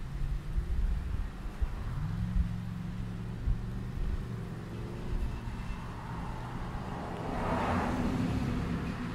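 Wind of about 16 mph rustling palm fronds and rumbling on the microphone, with a louder rush near the end. A vehicle engine hums in the background for a few seconds, rising in pitch about two seconds in.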